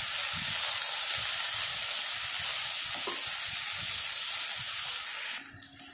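Sliced ivy gourd frying in oil, a steady sizzle, while a wooden spatula stirs it through the pan. The sizzle cuts off suddenly about five seconds in.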